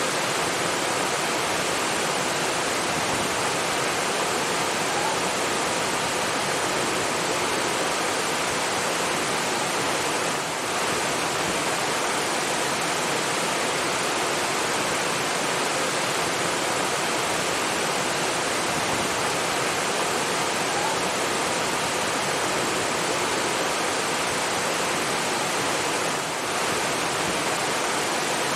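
Rushing water, like a waterfall or fast stream, running as a steady, even hiss; the level dips briefly twice.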